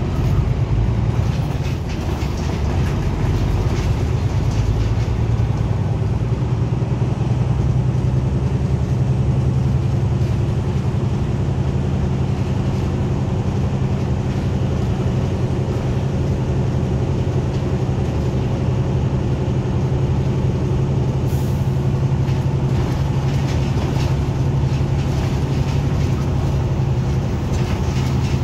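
Interior of a moving city route bus: steady engine drone and road noise heard from inside the passenger cabin.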